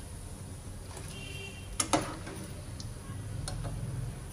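Steel spoon clinking against a pan while fried gram-flour dumplings are scooped out of hot oil, with a few light ticks and two sharp clicks close together about two seconds in, over the faint sizzle of the oil.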